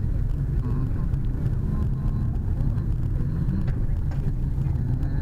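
Steady low rumble of a car driving on a gravel road, heard from inside the cabin: engine and tyre noise.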